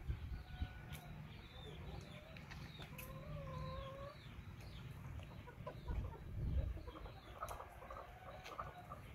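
Chickens clucking and calling, with one drawn-out wavering call about three seconds in and a run of quick clucks near the end.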